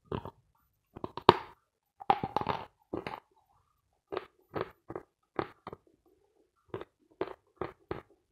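Teeth biting into a hard, dry bar of Vatutin chalk, with a sharp, loud crunch about a second in and a cluster of crunches after it. Then the chalk is chewed with the mouth closed, with short crunches about two a second and a brief pause midway.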